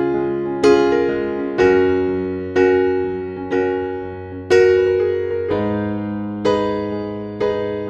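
Background music: slow solo piano, a chord struck about once a second and left to ring and fade before the next.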